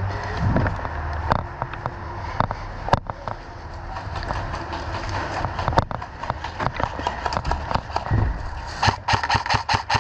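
Airsoft guns firing: scattered single cracks, then near the end a fast, even string of about ten shots a second from an automatic gun.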